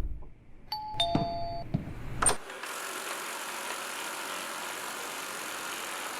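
A two-note electronic chime falling in pitch, then a couple of clicks, followed by a steady even whooshing noise.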